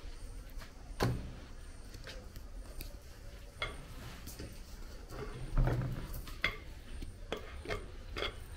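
A handful of short knocks and clicks, about seven, scattered unevenly, the loudest just past halfway, over a steady low hum.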